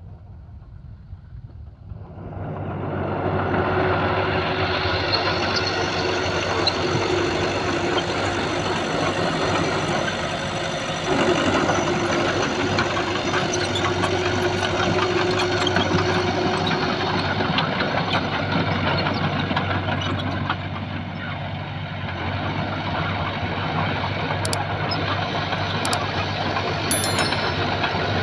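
Heavy diesel engine of earth-moving machinery running, coming in about two seconds in and building to a steady loud drone, with a further rise about eleven seconds in.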